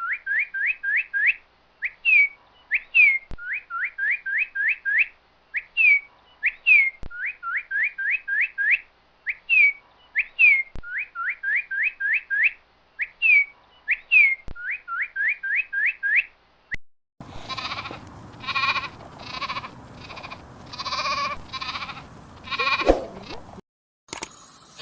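A long run of short rising whistled chirps in quick groups of four or five, then about six seconds of repeated bleating calls, ending with a sharp click.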